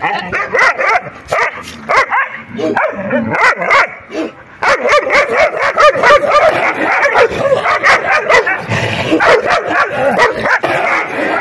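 Dogs barking and yapping in a play-fight, a black-and-tan dog barking at two scuffling puppies. There is a quieter spell in the first half, and the barking runs on almost without a break from about four and a half seconds in.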